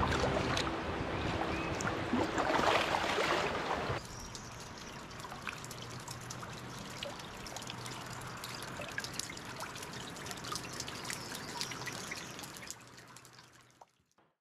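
Water dripping and trickling off a rock bluff into a river: many small drips splashing onto the surface over a steady trickle. For the first few seconds a louder rush of river water over riffles comes first, and the sound fades out near the end.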